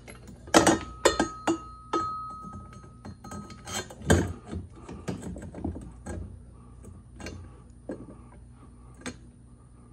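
Metal seat-belt bracket knocking and clinking against a golf cart's steel roof-support tube as it is worked into line with newly drilled bolt holes. There are scattered sharp knocks, and one about two seconds in leaves a thin metallic ring for a second or two.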